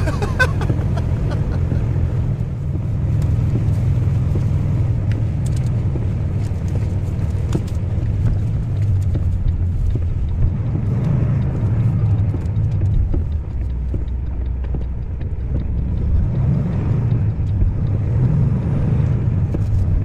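Steady low rumble of a vehicle's engine and road noise while driving.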